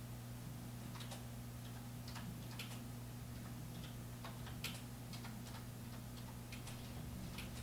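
Faint, scattered light clicks at uneven spacing, a few a second and sometimes in quick pairs, like a computer keyboard and mouse in use, over a steady low electrical hum.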